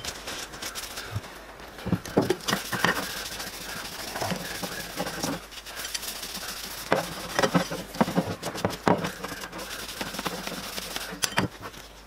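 A cloth rag rubbing Danish oil into a wooden spatula handle with a scrubbing, hissing sound, broken by scattered knocks and taps as the spatula is handled on a wooden workbench.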